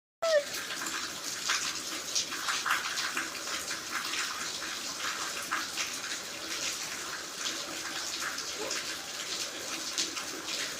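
Steady splashing of water, dense with small irregular splashes. A brief high falling call sounds at the very start.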